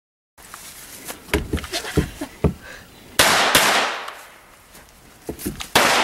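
Pistol shots fired in quick pairs: two shots about three seconds in, a third of a second apart, and two more near the end, each followed by a short ringing tail. Lighter knocks and clicks come before the first pair.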